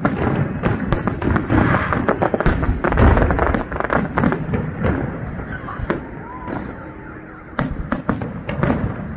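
Aerial fireworks display: a rapid barrage of shell bursts and crackles, densest in the first five seconds with a deep boom about three seconds in. It thins out briefly, then a second cluster of bangs comes near the end.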